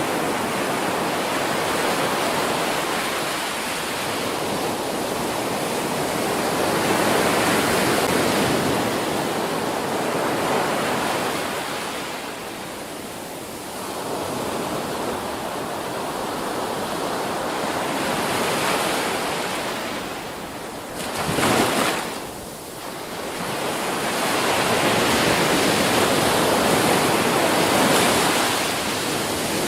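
Ocean waves breaking on a beach: surf rising and falling in slow swells every few seconds, with one short, sharper rush about two-thirds of the way through.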